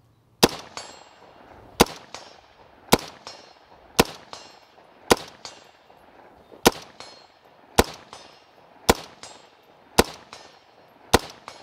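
Ten semi-automatic rifle shots from a PSA KS47, an AR-15 chambered in 7.62x39, fired at a steady pace of about one a second. Each shot is followed about a third of a second later by a fainter second report.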